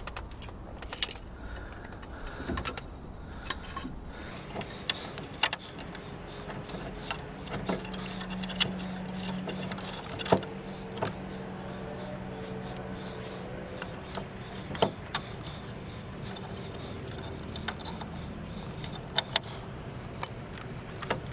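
Scattered metallic clicks and clinks as a steel drum-brake backing plate is handled and the cable through it is worked with pliers to free its retaining tabs. A faint low hum runs in the background from about a third of the way in.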